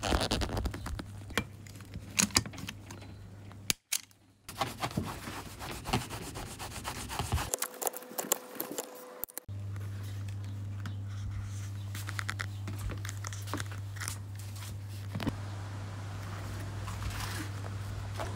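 Hands rubbing and handling vinyl seat upholstery, with scattered clicks and knocks. The sound drops out briefly about four seconds in, and a steady low hum comes in about halfway through.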